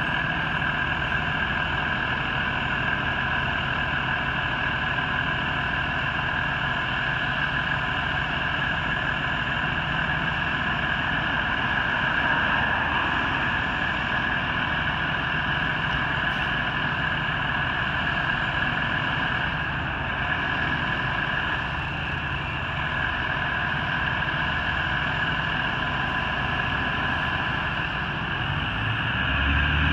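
Diesel engine of a fire department rescue truck idling steadily. A car drives past near the end as the engine noise grows louder.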